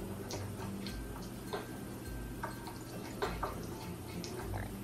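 A miniature spoon clicking and scraping against a tiny glass bowl as ingredients are stirred, a run of small irregular ticks played back through a screen's speaker. A soft low thump recurs about once a second underneath, with a steady hum.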